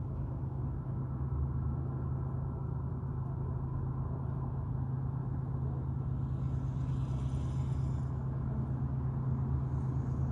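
A steady low droning rumble heard from the sky at night, its source unexplained. A brief hiss rises over it about six seconds in.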